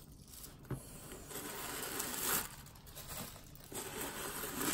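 A leather drawstring bucket bag being handled as its chain drawstring is loosened and the top pulled open: leather rustling with light clinks of metal chain. A sharp click comes about three-quarters of a second in.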